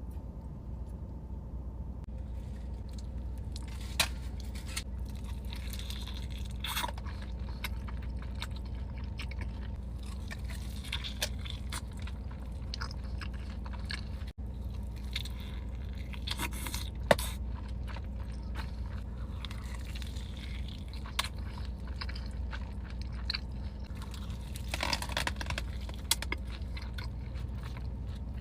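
Close-miked mukbang eating: chewing and biting with occasional crunches and wet mouth clicks, over a steady low hum. A couple of sharp clicks stand out, about four seconds in and again past the middle.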